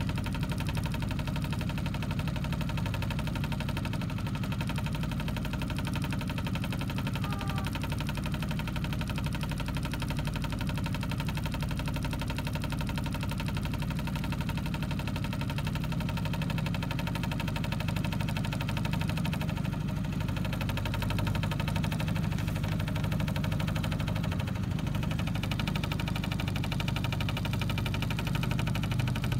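A small boat's outboard motor running steadily with a constant low hum, pushing the boat slowly along.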